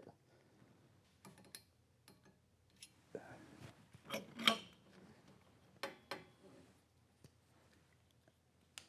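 Scattered light clicks and knocks of steel frame parts, a tube and a machined head tube casting, being handled and test-fitted together. The louder knocks come about four seconds in and again near six seconds.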